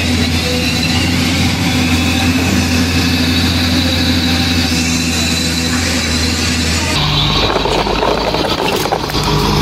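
A heavy diesel vehicle engine running steadily at idle. About seven seconds in it switches abruptly to a deeper, rougher engine sound.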